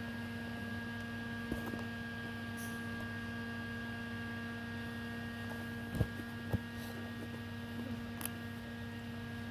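Steady electrical hum made of several held tones, with a few light knocks, two of them half a second apart about six seconds in.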